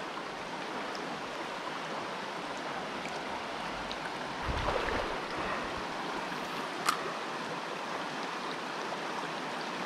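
Small mountain stream running over stones, a steady rush of water. A brief low rumble about halfway through and a single sharp click about two-thirds of the way in.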